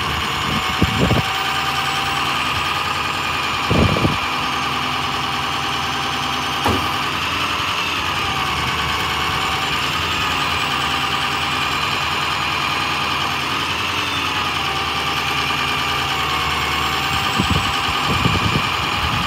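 The 6.0L V8 diesel of a 2003 International 4200LP bucket truck running at idle, with a whine from the Versalift boom's hydraulics that wavers in pitch as the boom is lowered. There are a few short thumps about four and seven seconds in and again near the end.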